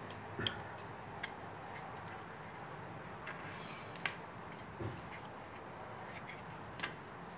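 A handful of light, irregular clicks and taps from a plastic graphics-card fan shroud being handled, over a steady background hiss.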